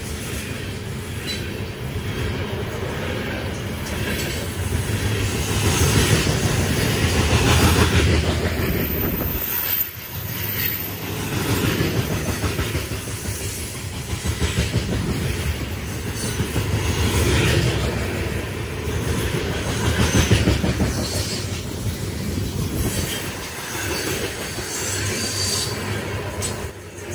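Coal train's hopper cars rolling past at close range: continuous wheel-on-rail noise that swells and eases every few seconds as the cars go by.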